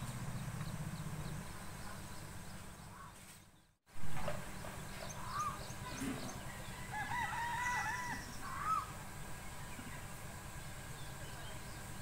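A rooster crowing and birds calling in a village morning, the calls coming as clusters of short rising-and-falling notes between about five and nine seconds in. The sound drops out completely for a moment just before four seconds in.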